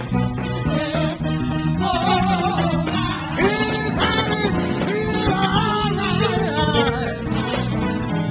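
Live gospel music: a church band with guitar over a repeating low bass line, and voices singing long, bending notes over it from about three and a half seconds in.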